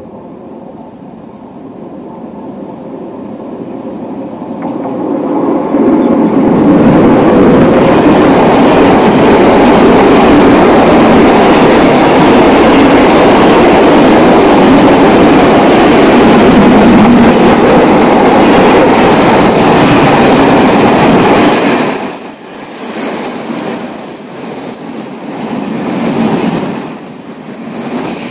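Freight train of covered wagons approaching and passing close by: its rumble builds over the first several seconds into a loud, steady rush of wheels on rail. About three quarters of the way through it drops to the quieter, uneven rolling of the wagons, with thin, high-pitched wheel squeals.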